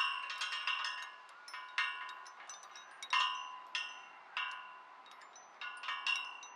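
Hanging metal chains of an old flying-chain swing (maypole) jingling and clinking against the pole: irregular bright metallic strikes, each ringing on briefly, some louder than others, with short quieter gaps between clusters.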